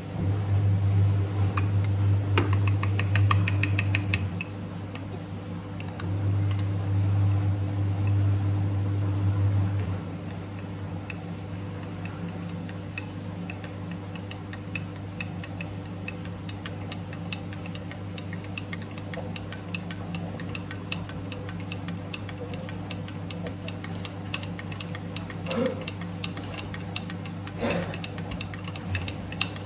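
Stirring coffee in a glass measuring jug: a utensil clinks and scrapes against the glass in many small ticks, with a couple of sharper knocks near the end. A steady low hum runs underneath and swells louder twice in the first ten seconds.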